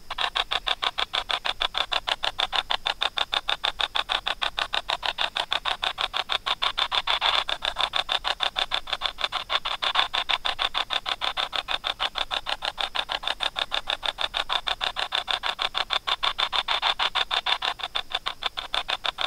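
A spirit box app sweeping, giving a rapid, even, choppy pulsing of radio-like static several times a second, played in answer to a spoken question.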